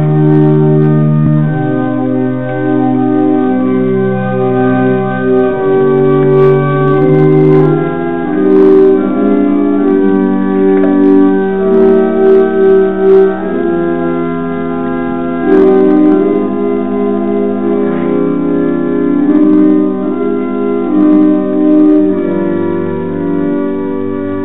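Church organ playing slow, sustained chords, the notes held for a second or two before moving to the next chord.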